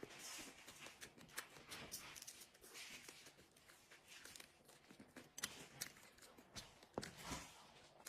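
Quiet close-miked eating of instant noodles: chewing and soft slurps with many small wet mouth clicks.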